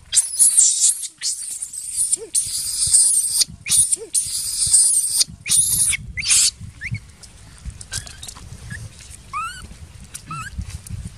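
Baby macaque screaming in distress as a larger monkey holds it down: a string of loud, shrill screams for the first six seconds or so, then fainter squeals that rise and fall in pitch.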